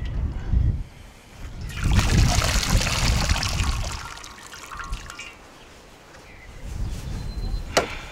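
Liquid pouring and trickling for about two seconds, then fading away, with a single sharp click near the end.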